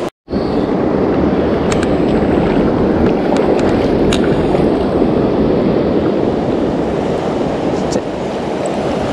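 Steady rush of fast river current around a wading angler, with a brief dropout right at the start.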